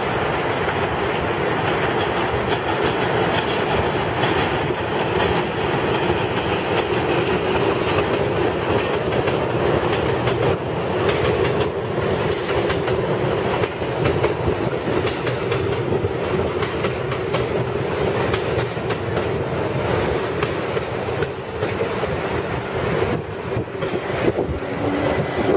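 R62A subway train of the 1 line running into an elevated station on steel viaduct track: a steady rumble of wheels on rail with repeated clicks over the rail joints, easing a little near the end as the cars slow alongside the platform.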